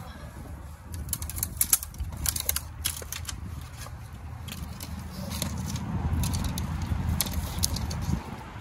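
Scattered sharp clicks and crackles of dry brush and sticks being handled and trodden at a shoreline, over wind rumbling on the microphone that swells in the second half and drops off near the end.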